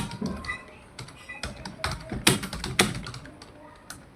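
Computer keyboard being typed on at a steady working pace, in an uneven patter of key clicks with a few louder strokes, slowing briefly near the end.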